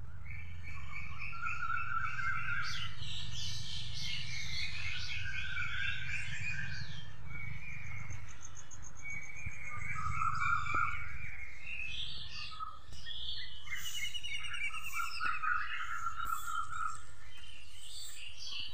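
Many birds chirping and calling at once in a dawn chorus of overlapping short chirps and trills. A low rumble runs underneath and stops about two-thirds of the way through.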